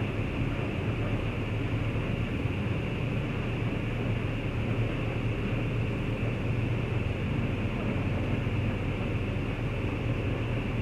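Diesel engine of a Mercedes-Benz OH 1526 bus running steadily as the bus is driven slowly, heard from inside the driver's cab: an even low hum with no revving.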